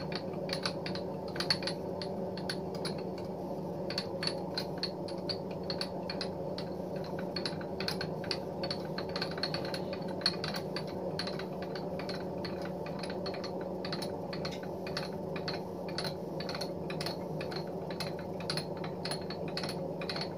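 Jet JMD-2S milling machine table being moved slowly along its ways under a dial test indicator: a steady low hum with a run of light clicks, two or three a second, as the table travels.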